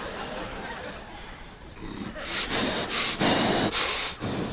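A person making a run of short, forceful breathy snorts and exhalations, starting about two seconds in, as a vocal imitation of a gymnast's effort.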